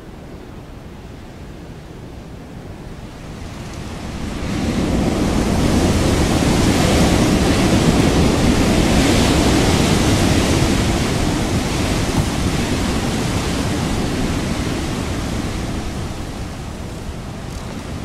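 Wind blowing, rushing steadily, then rising into a strong gust about four seconds in that holds for several seconds and slowly eases off near the end.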